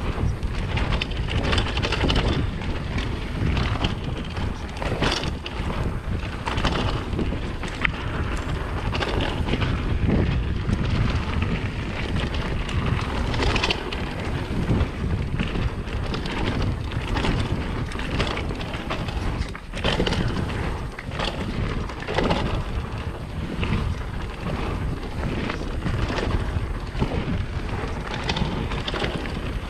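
Wind buffeting the microphone over a mountain bike rolling fast on a dirt singletrack: a steady rush from the tyres with frequent short knocks and rattles from the bike going over bumps.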